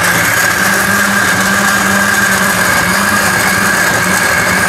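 Electric blender running steadily with a high whine, grinding a spice paste of shallots, garlic, galangal, ginger, turmeric, candlenut and dried chili.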